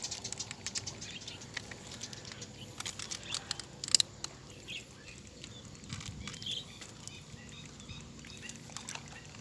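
Scattered sharp clicks and small taps, irregular, with one louder sharp knock about four seconds in.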